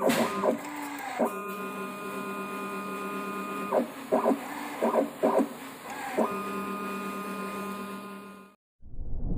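An automatic paint tinting machine runs its colorant pump with a steady mechanical hum and whine while dosing yellow tint into a paint bucket. There are several short clattering bursts in the middle. The machine sound cuts off suddenly, and a loud rushing whoosh starts near the end.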